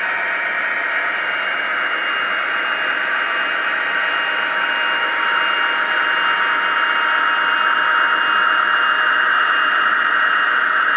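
Sound-equipped model diesel locomotive running, its sound decoder playing diesel engine sound through a small onboard speaker: a steady hiss with a few held tones through it, slowly getting louder.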